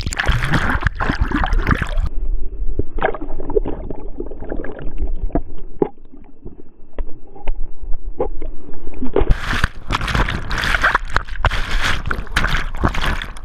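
Churning, splashing water of a pool rapids ride, heard close up by a camera at the water's surface. From about two seconds in the sound goes muffled and dull for several seconds as the camera dips under the water, then bright splashing returns near the end.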